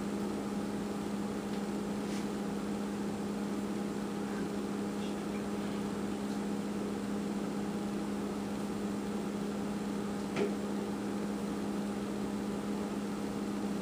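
Steady low hum of a running household appliance or fan, with one faint tap about ten seconds in.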